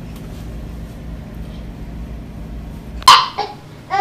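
A steady low hum, then about three seconds in it cuts off and a loud, brief, high-pitched cry breaks in, followed by two shorter cries near the end.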